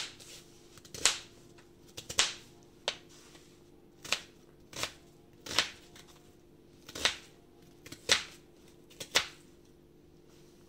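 Plastic spice jar of ground red pepper being shaken and jolted over a bowl, giving sharp clicking taps about once a second, about ten in all.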